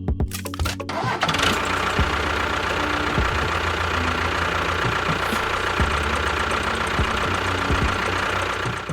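A small motor starts about a second in, runs with a steady whir and stops near the end.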